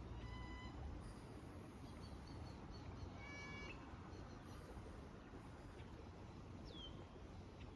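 Two short, faint animal calls, each with a clear pitch, about three seconds apart, then a quick falling bird chirp near the end, over a steady low background hum.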